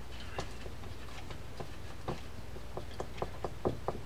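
Light clicks from a hand screwdriver turning small screws into the metal side plate of an Ocean City 113 fishing reel: a few scattered clicks, then a quicker run of them near the end.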